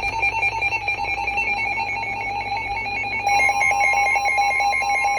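Electronic emergency-alert tone: a harsh, rapidly warbling tone, joined about three seconds in by a second, steady, slightly higher tone.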